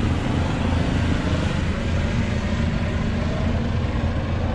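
Helicopter flying nearby, a steady low engine and rotor drone.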